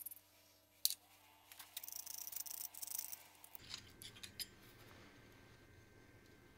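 Small metal-on-metal handling sounds from an adjustable thread-cutting die and its die holder being set by hand: a sharp click about a second in, then a run of light metallic clinking and scraping, then a few more clicks.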